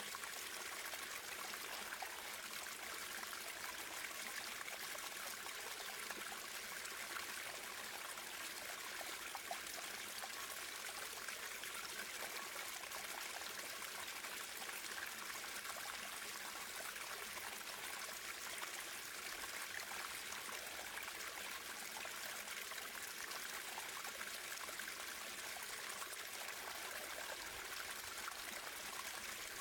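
Running water of a stream, flowing steadily with a trickling, splashing sound.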